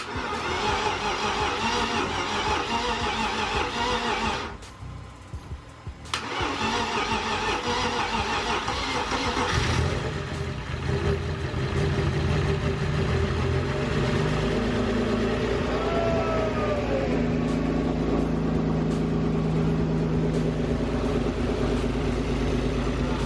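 A BMW E36 325i's inline-six being cranked by the starter, a short pause, then cranked again until it catches about ten seconds in and settles into a steady idle. This is the engine's first start after being rebuilt and reassembled.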